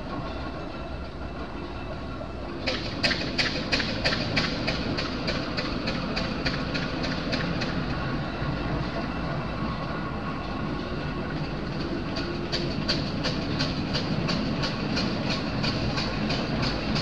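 Steam traction engine on the move: its exhaust beats in a regular chuff of about five beats a second that starts about three seconds in, over a steady low rumble of the engine and wheels.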